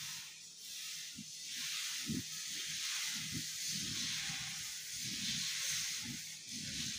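Dosa batter hissing steadily on a hot iron tawa while the back of a steel ladle spreads it in circles, with a low, uneven rubbing of the ladle against the griddle.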